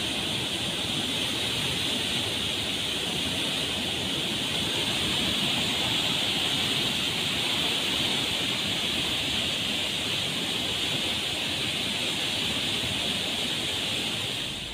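Floodwater rushing steadily out of the Kadem project dam's open spillway gates, with fifteen gates opened to release the flood.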